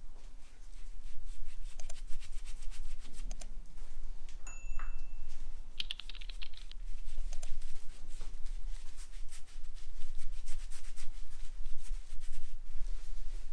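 Shaving brush rubbed over a freshly clipped scalp in quick, repeated strokes: the bristles scratch and swish against the skin.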